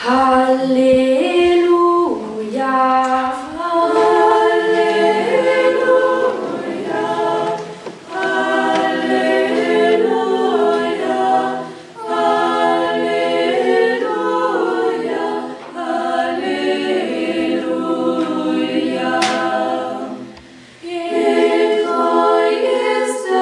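Small youth choir of mostly girls' voices singing a cappella in parts, in phrases a few seconds long with short breaks for breath between them.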